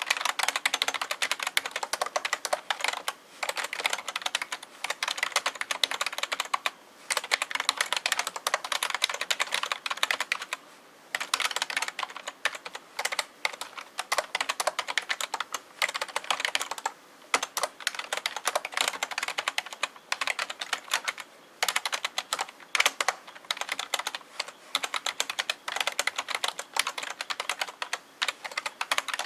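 Fast continuous typing on an NEC KFRFEB212D full-size membrane computer keyboard: dense runs of key clicks, broken by brief pauses every few seconds.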